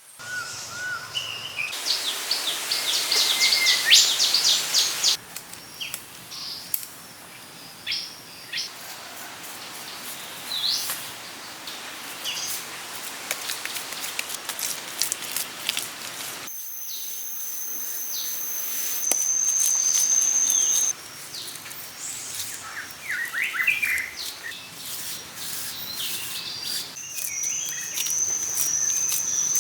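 Outdoor ambience of birds chirping in short repeated calls, with a steady high whine in two stretches (from about halfway to around two-thirds through, and again near the end) and scattered clicks. The sound changes abruptly several times.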